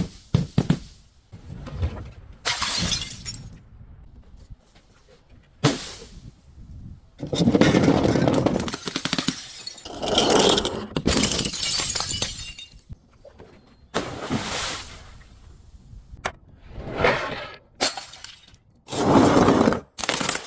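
Glass bottles being crushed, shattering and crunching in a series of separate bouts, some brief and some lasting two or three seconds, with short quiet gaps between them.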